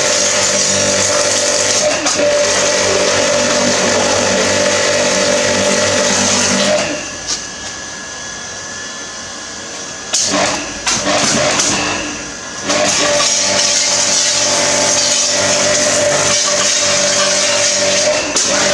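StarQ W3 electric pressure washer's 1800 W induction motor and pump running steadily with the hiss of the water spray. About seven seconds in the motor drops out for roughly six seconds, with a few knocks, then starts running again.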